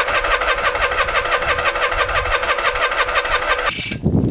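Electric starter cranking the Kohler KT17 twin-cylinder engine of an Ariens GT17 garden tractor: a fast, even chugging rhythm that turns over without catching, then cuts off near the end. It is the first start attempt on a newly fitted replacement carburetor, with the choke closed.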